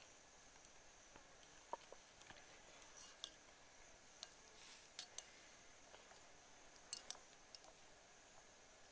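Near silence, with a few faint, scattered clicks of a metal spoon against a ceramic bowl as porridge is stirred and scooped.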